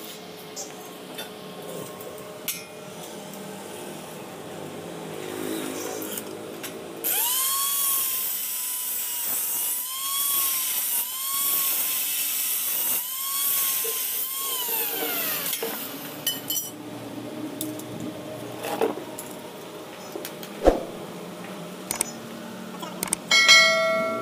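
Angle grinder with a thin cutting disc cutting stainless steel tube: the motor whines up to speed, its pitch dips several times as the disc bites into the metal, then it switches off and winds down. Afterwards a few knocks of metal pieces being handled, and a short loud chime near the end.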